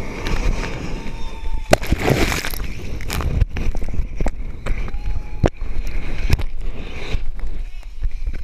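Rushing wind buffeting a body-worn microphone during a bungee jump's free fall and rebound, with a heavy rumble and many sharp knocks and clicks.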